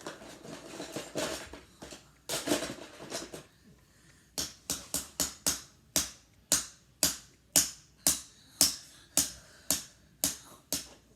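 Handling noise for the first few seconds, then a steady run of sharp, evenly spaced clicks, about two a second.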